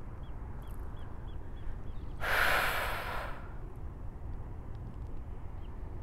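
A woman sighs: one long breathy exhale about two seconds in, lasting about a second. Faint short chirps repeat in the background.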